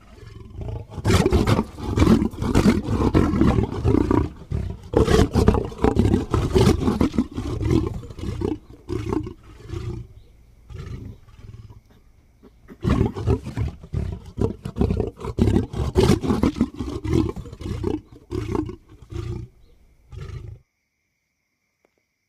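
A lion vocalizing over its kill, in two long runs of rapid, deep pulses with a short lull between, cutting off suddenly near the end.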